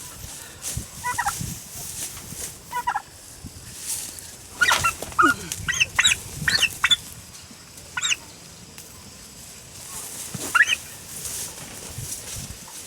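Domestic turkeys gobbling and calling: a string of short, wavering calls, busiest around the middle.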